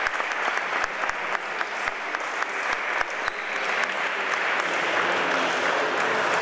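Applause: many hands clapping steadily, with a few sharper, louder claps standing out.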